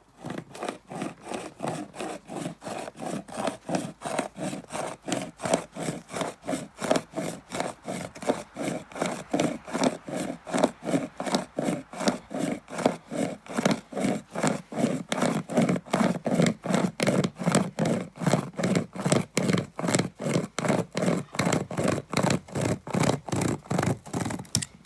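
Pocket chainsaw, a toothed chain pulled back and forth by hand that cuts in both directions, sawing through a limb about three inches thick. The sawing is steady and even, at about two to three strokes a second, and stops abruptly at the end.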